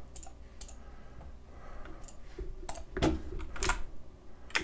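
Computer keyboard keys tapped a few times at an irregular pace: two light clicks in the first second, then a quick run of louder ones from about two and a half seconds in.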